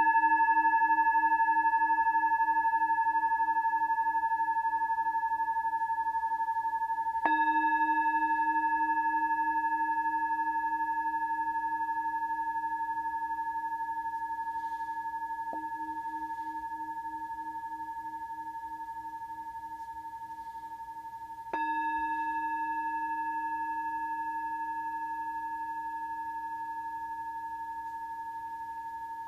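Metal Tibetan singing bowl ringing as one long tone with higher overtones, struck twice more about a third of the way and three quarters of the way through. Each ring fades slowly, with a low hum that pulses steadily underneath.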